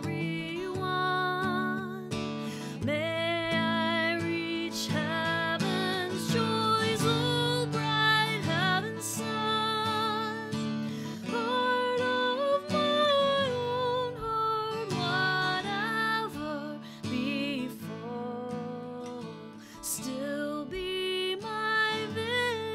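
A woman singing a hymn, accompanying herself by strumming an acoustic guitar.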